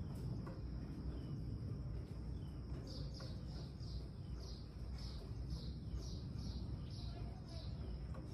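A bird calling a run of short, falling chirps, about two a second, starting about three seconds in and stopping shortly before the end. Under it are a steady high-pitched hum and a low rumble.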